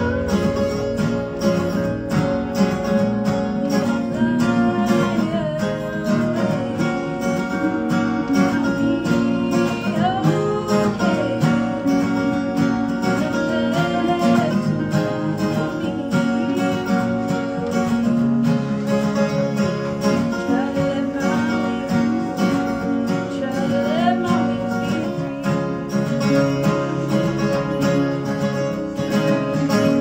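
Live acoustic country music: acoustic guitars strummed and picked, with a woman singing over them.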